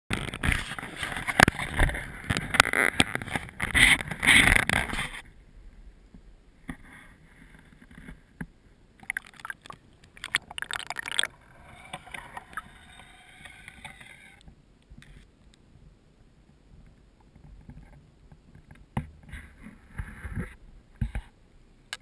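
Water splashing and sloshing against an action camera at the surface of a small stream, loud for the first five seconds. After that come fainter, scattered splashes and muffled underwater sound, with a few knocks near the end.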